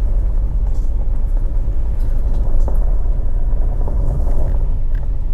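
Toyota Land Cruiser driving slowly along a rough dirt trail, heard from inside the cabin: a steady low rumble of engine and tyres, with a few faint knocks.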